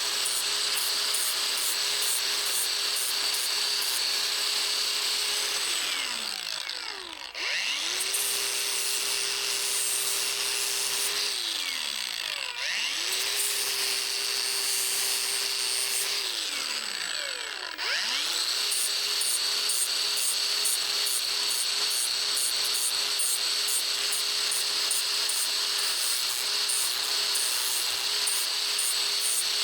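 Electric power tool running with a steady rubbing, grinding noise as it works the knife blank. Its motor spins down and back up three times, about 6, 11 and 17 seconds in.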